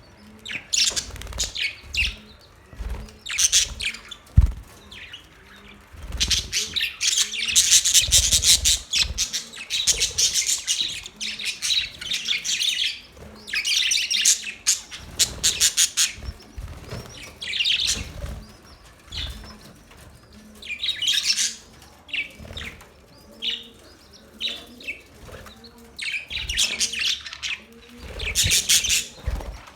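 Budgerigars chirping and warbling in rapid, busy bouts with short pauses between them, and a single knock about four seconds in.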